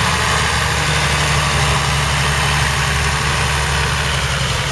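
A 1992 John Deere 3650 tractor's 5.9-litre six-cylinder diesel engine running steadily, not pulling against the soil because the plough is raised.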